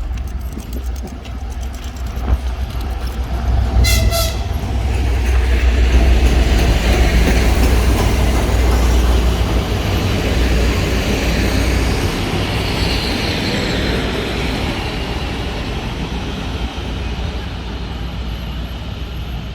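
A diesel train sounds a short horn blast about four seconds in, then passes close by with a heavy diesel rumble and wheel noise that swells and slowly fades.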